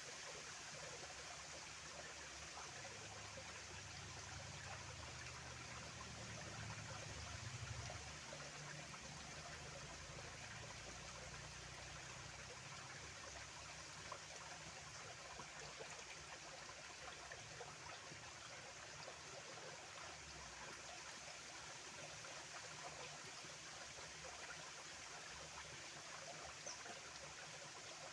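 A small stream flowing steadily with a faint, even trickle of running water. A low rumble rises under it a few seconds in and fades by about a third of the way through.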